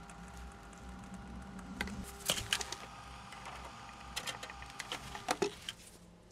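Irregular light clicks and knocks, bunched a little after two seconds in and again around four to five seconds, over a faint steady background.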